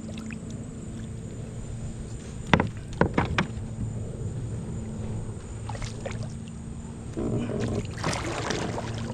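Handling sounds on a small fishing boat: a steady low hum, a few sharp knocks about a third of the way in, and a rougher noisy stretch near the end.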